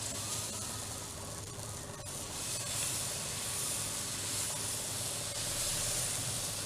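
Green gram dosa batter sizzling on a hot tawa as it is poured and spread: a steady hiss that grows a little louder about two and a half seconds in.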